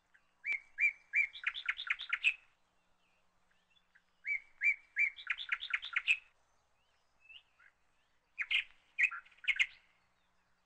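A songbird singing three similar phrases a few seconds apart. Each phrase is a few spaced, clear notes followed by a quicker run of rising notes.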